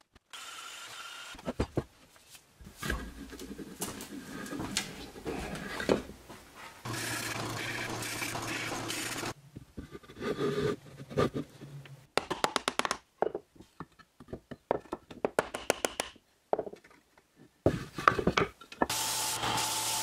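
A run of short woodworking-shop sounds: knocks and clicks of wood and clamps, a power tool running steadily for about two seconds, and bursts of rapid even ticking. Near the end a bench belt-and-disc sander starts running with a steady hum.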